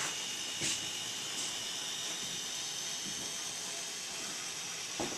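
N scale end-cab switcher locomotive running slowly along the track: a steady hiss with a faint high whine, and a couple of light clicks.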